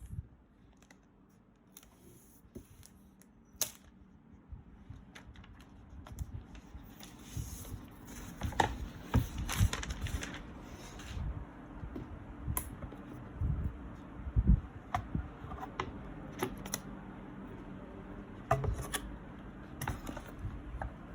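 Hands breaking the seal on an Apple Magic Keyboard box and opening the packaging: scratchy rustling with scattered clicks and knocks of cardboard and wrapping. It starts sparse and gets busier a few seconds in.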